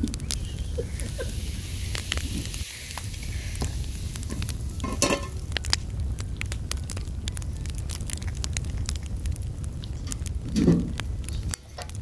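Wood fire crackling in a small wood-burning stove under a pan, with a hiss from the hot pan over the first few seconds. A louder clatter about five seconds in and another near the end.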